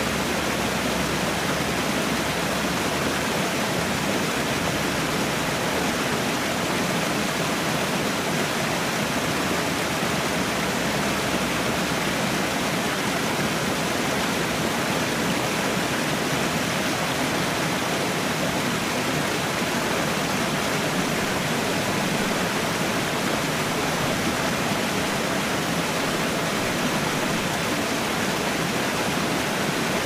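Waterfall pouring over rock into a shallow plunge pool: a steady, unbroken rush of falling water.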